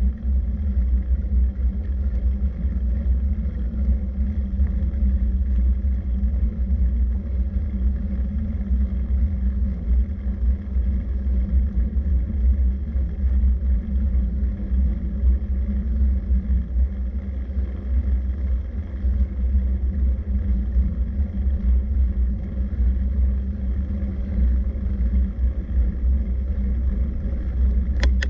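Steady low rumble of travel noise with a faint constant hum, unbroken throughout, and a short click just before the end.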